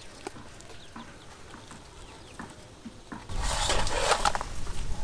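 Chickens clucking in the background while boiled pig intestines are handled with metal tongs, with faint ticks and taps. About three seconds in, a sudden loud rush and rumble as the red plastic colander is tipped and the intestines tumble into an aluminium bowl.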